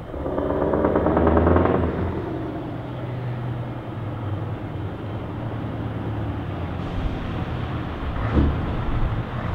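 Scania R580 V8 diesel with open straight exhaust pipes, louder for the first two seconds, then running steadily as the truck rolls slowly forward. A short louder burst about eight seconds in.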